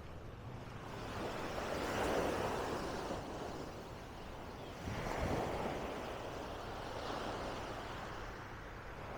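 Small waves breaking and washing up on a sandy beach, with two surges about three seconds apart.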